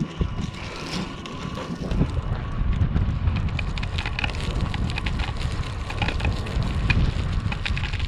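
Aluminium foil flexible heater duct crinkling and crackling as it is handled and pushed through a port in a tent wall, with wind rumbling on the microphone.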